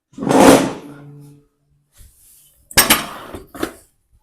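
Chiropractic drop table's padded section dropping under an adjustment thrust, a loud metallic clank that rings on briefly, followed by two sharp clacks in the second half.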